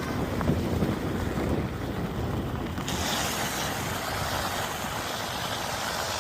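Wind buffeting the microphone in gusts, with the steady rush of flowing floodwater coming in about three seconds in.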